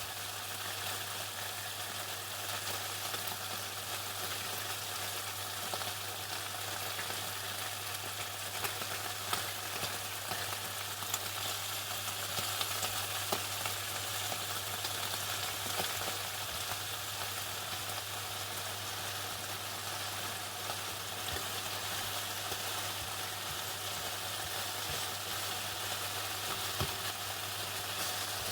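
Chicken frying in hot oil: a steady, dense crackle and sizzle with scattered sharper pops, over a low steady hum.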